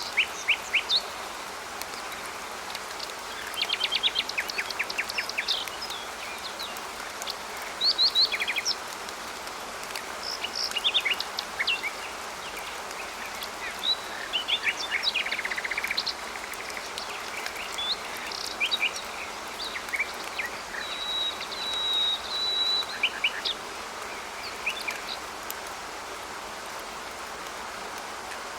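Songbirds chirping and trilling in quick bursts of short high notes, with one longer held whistle about two-thirds through, over a steady hiss of rain. The birds fall silent near the end, leaving the rain.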